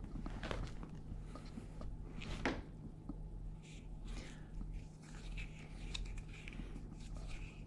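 Soft rustles, scuffs and light clicks from a feather boa toy being swished over carpet while a kitten plays with it, over a steady low hum. The sharpest click comes about two and a half seconds in.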